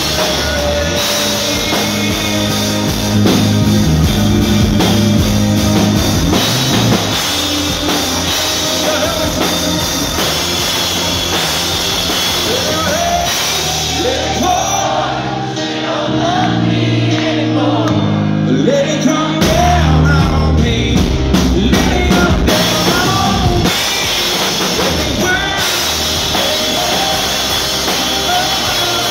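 Live rock band playing loudly: a male lead vocal over guitar, keyboard and drums. About halfway through, the cymbals and drums fall away for a few seconds, leaving the voice and keys, then the full band comes back in.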